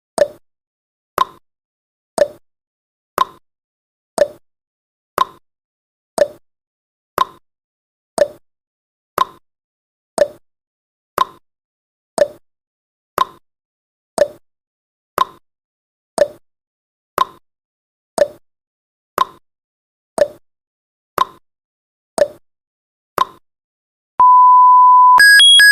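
Countdown timer sound effect ticking once a second, the ticks alternating slightly in pitch like a tick-tock. About 24 seconds in the ticking stops and a steady beep sounds for about a second, then a higher alarm tone starts near the end as the countdown runs out.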